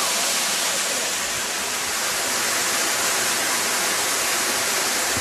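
Waterfall pouring into a rock pool: a steady, even rush of falling and splashing water.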